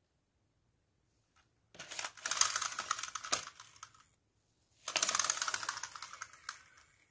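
Pink slime being handled, giving a dense, sticky crackling in two bursts of about two seconds each, each fading toward its end.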